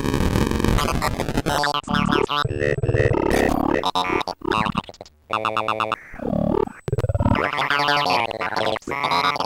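Glitched modular synthesizer audio run through a Qu-Bit Data Bender and an Intellijel Rainmaker: pitched fragments chopped into stuttering repeats with abrupt cuts, and brief dropouts around the middle.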